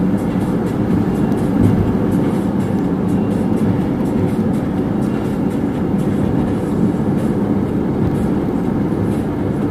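Steady road noise of a car driving at speed, tyres on asphalt and engine, heard from inside the cabin.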